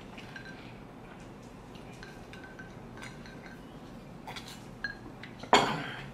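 Faint clinks and handling of a tall drinking glass while someone drinks from it, then the glass is set down on a wooden tabletop with one sharp knock near the end.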